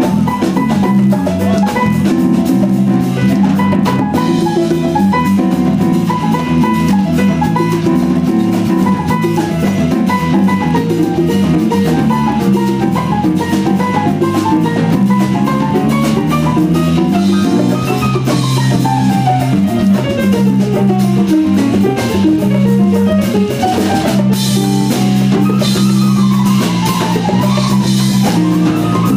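Instrumental jazz quintet playing a baião: a drum kit groove under an electric bass line, with a fast, busy lead melody and a long falling run past the middle.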